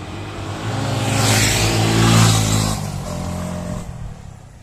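A motor vehicle engine swells to a peak about two seconds in, then fades away.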